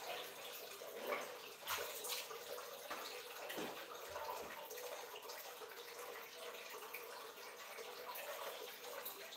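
Water running from a tap into a plastic bucket, with a few brief splashes as a plastic dipper is worked in the water.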